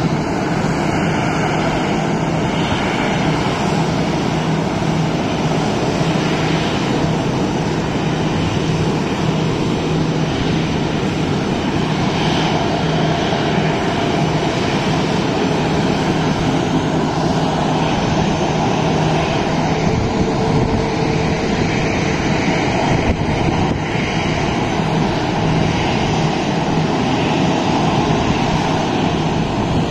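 Jet aircraft engines running, a steady loud noise with a low hum underneath that fades about two-thirds of the way through.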